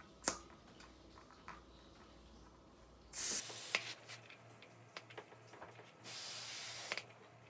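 Air hissing out of a fat-bike tyre in two bursts: a short one about three seconds in and a longer one of about a second near the end, after a single sharp click at the start.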